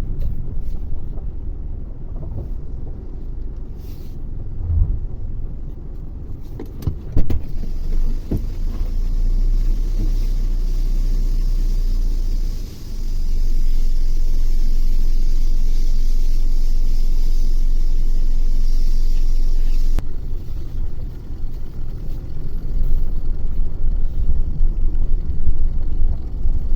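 Vehicle driving on the road: a low, steady rumble of engine, tyres and wind, which changes abruptly about three-quarters of the way through.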